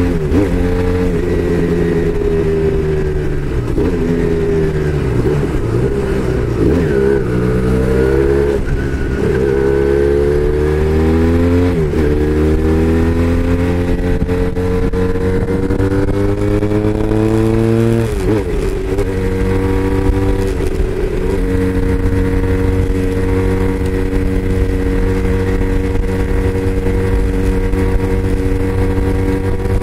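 Braaap Moto4 motorcycle engine pulling through the gears: its pitch climbs and drops back several times as it shifts up, the last shift about two thirds of the way in. It then holds a steady pitch at cruising speed.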